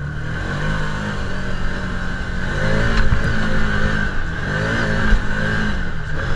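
Side-by-side UTV engine pulling up a steep sand hill, its note rising and dipping several times as the throttle is worked.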